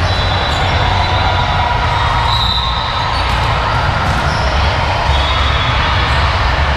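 Steady loud din of a busy indoor sports hall, with a heavy low rumble and a few faint knocks.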